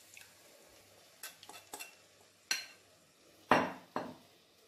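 A metal spoon stirring thick lentil paste into a pot of soya mixture, clicking and knocking against the pot several times; the loudest two knocks come about three and a half and four seconds in.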